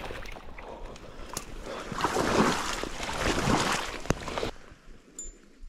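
Rustling and sloshing of wet marsh reeds and shallow water as an angler in waders moves through them. The noise swells twice, a sharp knock comes near four seconds, and it drops away soon after.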